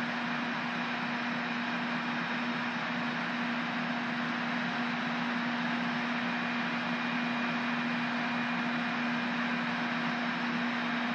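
Steady mechanical hum and hiss from a Tren Maya train standing at the platform, with a strong low drone and faint higher whines that hold steady throughout.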